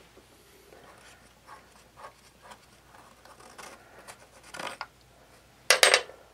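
Hands working at the screws of a lawnmower engine's plastic air filter housing: faint scraping and small clicks, then two loud sharp clacks close together just before the end.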